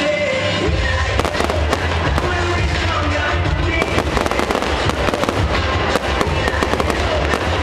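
Fireworks display, many shells bursting in quick succession, a dense run of bangs and crackles that thickens about halfway through, with music playing underneath.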